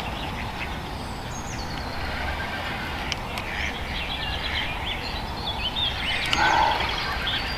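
Small birds singing and chirping, short high calls scattered throughout, over a steady low rumble of outdoor background noise.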